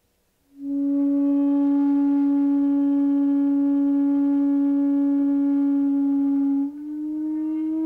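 Shakuhachi, the bamboo end-blown flute, sounding one long, steady low note that starts about half a second in, then moving to a slightly higher note that slides up near the end.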